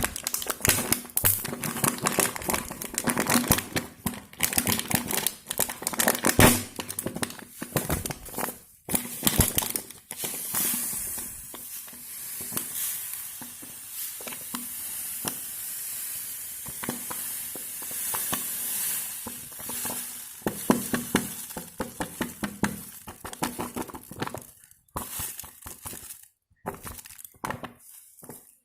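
Slime being handled and stirred: dense, irregular sticky clicking and crackling, easing into a steadier hiss for several seconds in the middle before the clicking returns.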